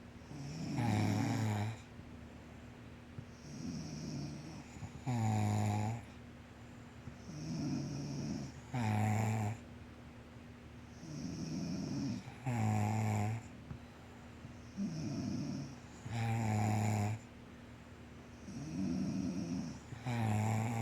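Snoring: loud, rumbling pitched snores about every three and a half to four seconds, alternating with quieter, breathier snores in between.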